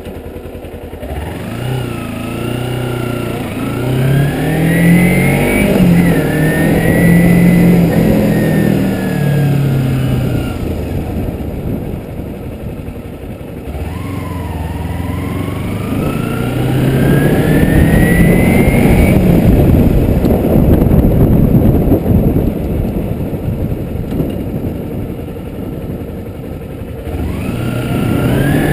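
Kawasaki Ninja motorcycle engine accelerating on the road: its revs climb, drop back at a gear change, and climb again, several times over.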